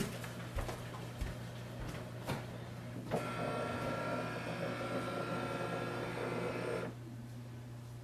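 HP DeskJet 2842e flatbed scanner scanning a page: the scan carriage motor runs with a steady whir of several pitches, starting about three seconds in and stopping suddenly near seven seconds, over a low steady hum.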